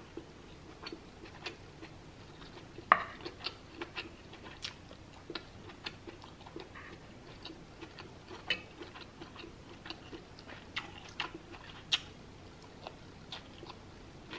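Close-miked chewing and mouth clicks of someone eating, with scattered sharp ticks and a few louder clicks, such as a wooden spoon and fork knocking on the pan, about three seconds in and near the end.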